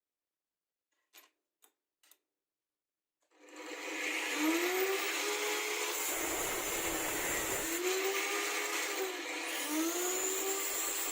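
A few faint clicks, then an electric power tool's motor switches on about three seconds in and runs steadily. Its pitch sags and climbs back several times, as when a load is pressed on and eased off.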